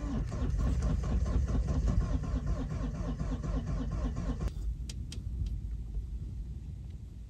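Force Gurkha's diesel engine being cranked by its starter on a very weak battery in extreme cold, with a steady rhythmic chug. It does not catch, and the cranking stops abruptly about four and a half seconds in.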